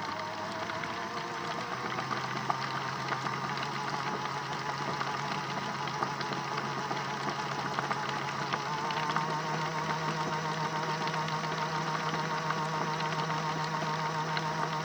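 Modified Miele W1 toy washing machine running its drum-clean cycle: a steady whir from the small motor turning the drum, with light scattered clicks. The pitch steps up about two seconds in and again about nine seconds in as the drum speeds up.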